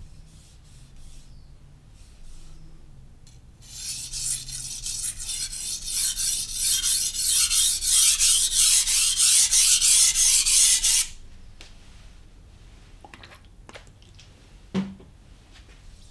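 Knife blade stroked back and forth on a Naniwa Professional 600-grit whetstone: a loud, rhythmic scraping of steel on stone at about three strokes a second. It starts a few seconds in and stops suddenly. A single short knock follows near the end.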